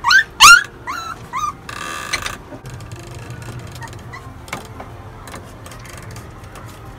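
Young puppies whimpering: four short, high cries that rise and fall in quick succession, then softer shuffling and small clicks.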